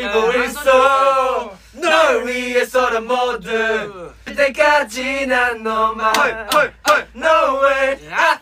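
Several young men's voices singing and chanting loudly together, with a few sharp clicks in the second half.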